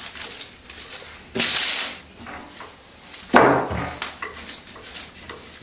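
Wooden rolling pin rolling pastry dough out on baking parchment over a wooden board: rustling, scraping strokes, the loudest about three and a half seconds in.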